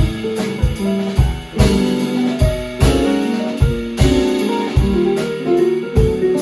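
Instrumental trio of digital piano, guitar and drum kit playing: piano chords and melody over a steady drum beat.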